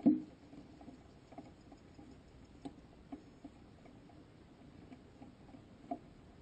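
Faint, irregular ticks and knocks from a rocket's airframe and onboard camera housing in high coasting flight, with no motor running; a single louder thump comes right at the start.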